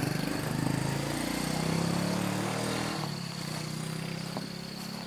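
A small engine running and fading away, quieter from about three seconds in, over a steady high insect buzz.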